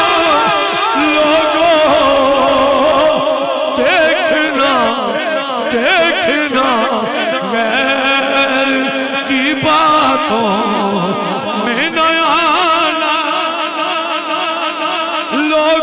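A man singing a devotional kalaam into a microphone, in long, wavering, ornamented phrases without pause.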